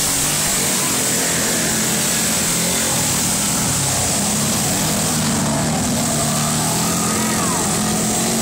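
Several ATV engines running and revving hard through a mud bog, their pitch rising and falling as the quads race.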